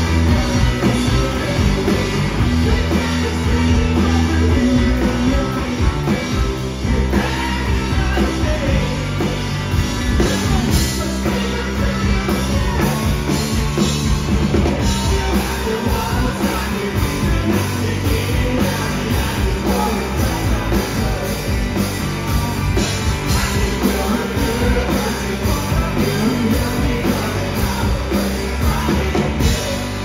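Live rock band playing loud: electric guitar, electric bass and drum kit, with a lead vocal sung over them.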